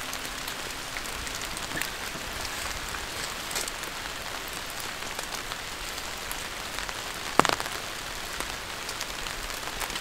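Steady rain falling, with scattered drops tapping and one sharper, louder knock about seven seconds in.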